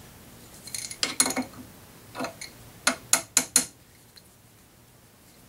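A steel wrench clinking against the lathe's steel tool post and boring-bar holder as the tool is set on center: a cluster of clinks about a second in, then four sharp clinks in quick succession about three seconds in.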